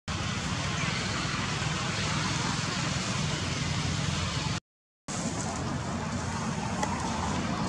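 Steady outdoor background rumble and hiss with no distinct events, cutting out to silence for about half a second a little past halfway.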